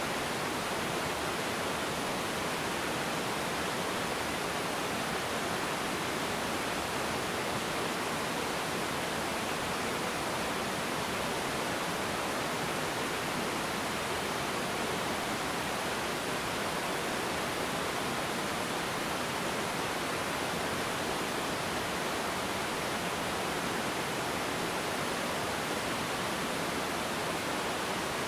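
Small river waterfall and rapids, water pouring over a low rocky cascade: a steady, unbroken rush of water.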